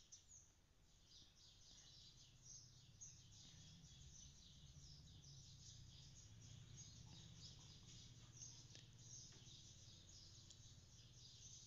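Faint birds chirping in the background, many short quick chirps, over a low steady hum.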